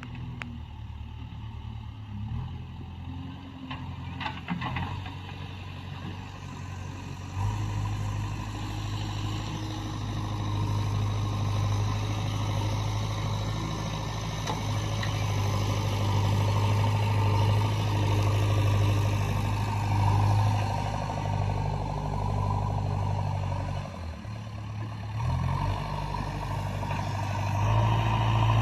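Diesel engine of a JCB backhoe loader running under work load, with a few knocks in the first seconds. The engine gets louder about seven seconds in, eases briefly near the end and then picks up again.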